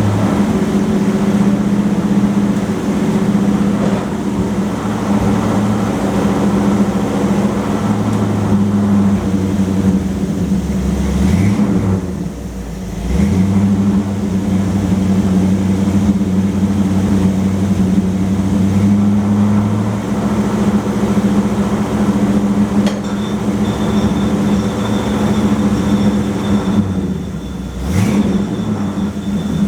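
Car engine running with its driven wheel turning while the 727 TorqueFlite automatic is worked through its gears. The engine note is steady, then dips and glides briefly twice, about twelve seconds in and again near the end.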